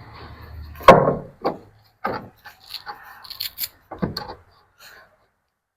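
Wooden boards being handled and worked into place: a sharp, loud knock about a second in, then lighter knocks, rattling and wood scraping on wood.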